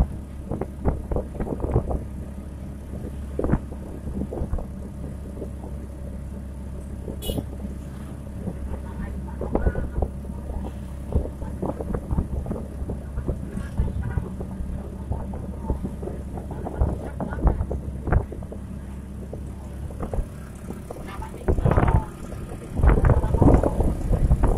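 Tossa three-wheeled motorcycle truck's engine running steadily while riding, with frequent rattles and knocks from the open cargo bed and its steel frame. Louder bursts of rushing noise take over in the last few seconds.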